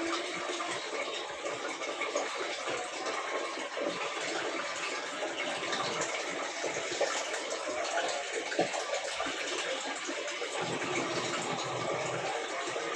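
Steady rush and slosh of water inside a Godrej Eon Allure Classic 7.5 kg washing machine running its wash cycle.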